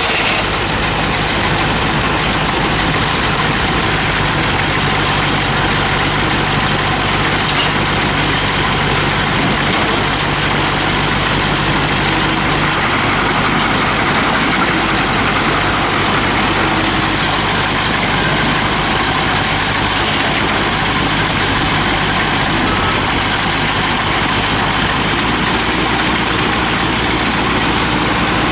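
Farm tractor engine running steadily at an even speed while pulling a round baler.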